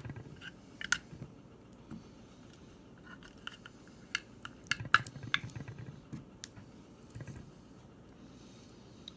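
Scattered clicks and taps of small objects being handled, with a cluster of sharper ones around four to five seconds in.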